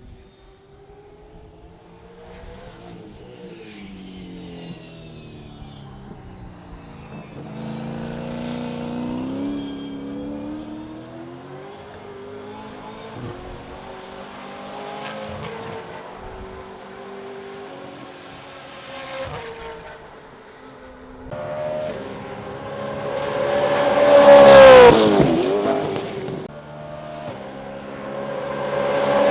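Gen3 Supercars V8 race cars running on the circuit. Engines are heard at a distance first, rising and falling through the gears. About 24 seconds in, one car passes close at full throttle with a sharp drop in pitch as it goes by, and another is closing in at the end.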